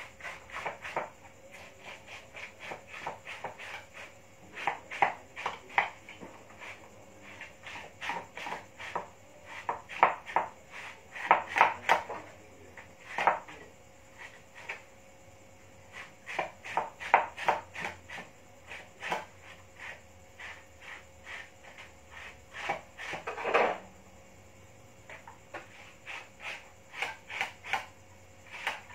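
Kitchen work with beef: quick clusters of knocks and taps of utensils on wood and metal, coming in bursts with pauses between them, and one longer, louder clatter a few seconds from the end.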